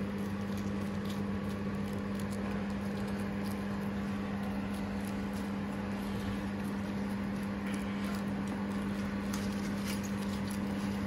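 Steady low hum, with a few faint scattered ticks.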